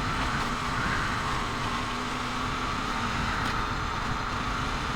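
Motorcycle engine running steadily while riding, with a constant rush of road and wind noise.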